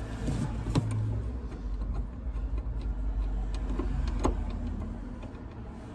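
Scattered light clicks and knocks of seatbelt fittings being handled and offered into place in a car interior, over a low steady hum that fades after about a second and a half.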